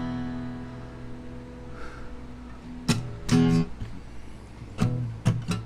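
Acoustic guitar: a chord rings out and fades, then strummed chords start about three seconds in, opening a song.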